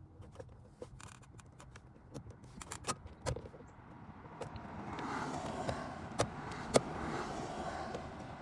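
Scattered sharp clicks and scrapes of a metal tool being pushed and worked in the release holes behind a car's steering wheel, probing for the spring clips that hold the driver's airbag. A steady rushing noise builds from about halfway.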